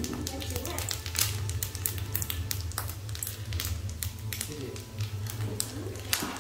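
Dried fish frying in oil in a pan: the hot oil crackles and pops in quick, irregular clicks over a steady low hum.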